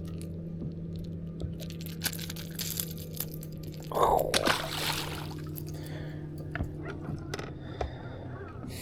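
A steady low electric-sounding hum with scattered light clicks, and a short splash of water about four seconds in.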